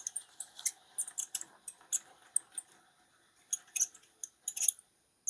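Irregular light metallic clicks and ticks of small tools and parts being handled around a shotgun barrel clamped in a drill-press vise, with a short lull midway.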